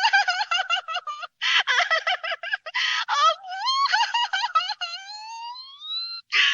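Cartoon sound effect: a rapid string of high-pitched, warbling chattering notes broken by short raspy honks, turning into a long rising glide about four seconds in.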